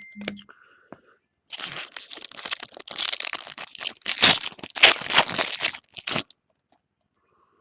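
A foil trading-card pack being torn open and crinkled, a dense crackling run with two sharper tears about halfway through, stopping well before the end. A short electronic tone sounds at the very start.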